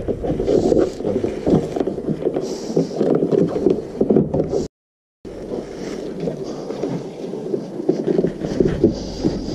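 Hard plastic scraping, rubbing and knocking as a battery charger is pushed and settled into place on a plastic battery box. The sound cuts out completely for about half a second midway.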